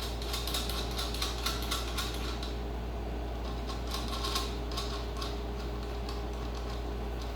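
Light metallic clicking and clinking in two short flurries, like tools or small metal parts being handled, over a steady low hum.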